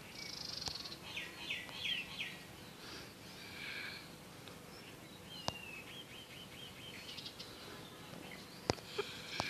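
Birds chirping faintly in the background: short repeated calls, then a quick run of falling chirps midway. Two sharp clicks are heard, about halfway through and near the end.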